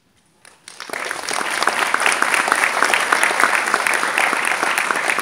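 Audience applauding: many hands clapping, starting about half a second in and building to full strength within a second.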